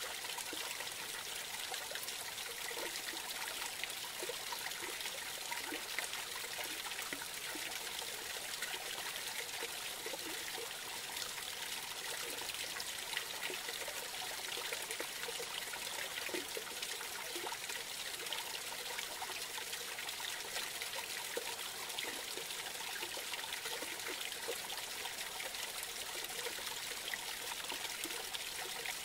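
A small forest creek trickling and splashing over a low cascade, a steady rush of water with many small gurgles throughout.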